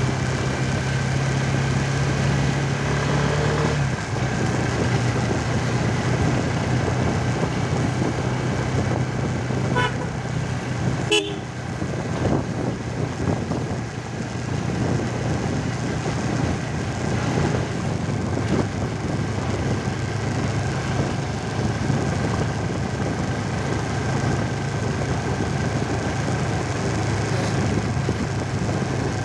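Motorcycle engine running steadily while riding, its tone dropping a step about four seconds in. A couple of short horn toots sound about ten seconds in.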